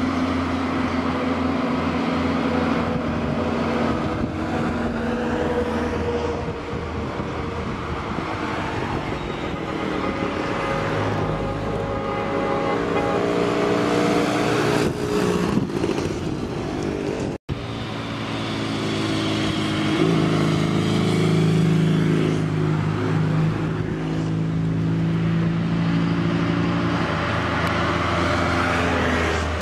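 Old Eastern Bloc vehicles driving past one after another: a fire engine, a Škoda sedan, motorcycles and a Trabant. Their engines rise and fall in pitch as each one passes, and the sound breaks off for an instant about seventeen seconds in.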